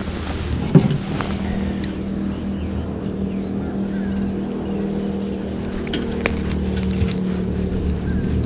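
A boat motor's steady hum, holding one pitch throughout. A single sharp knock comes just under a second in, and a few light clicks come about six seconds in.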